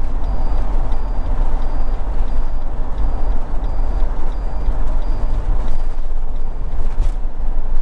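Steady road and engine rumble inside a motorhome cab driving at speed on a dual carriageway. A light regular tick of the turn indicator sounds about one and a half times a second and stops about six seconds in.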